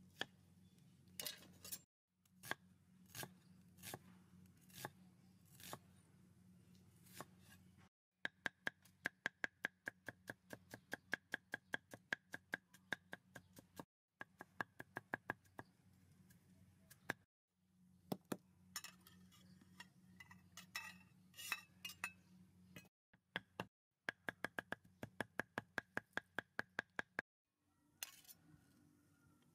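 Kitchen knife chopping on a round wooden chopping board: spaced strokes slicing an onion, then runs of fast, even chopping of garlic at about three to four strokes a second, each a sharp knock with a faint ringing tone from the blade. Near the end comes a single clink of the knife against a ceramic bowl.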